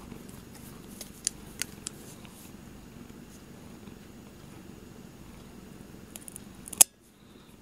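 Cat purring steadily while its claws are clipped with a guillotine-type nail clipper. There are a few sharp snips of the clipper about a second in, then a cluster near the end that ends in the loudest snip, after which the sound drops suddenly.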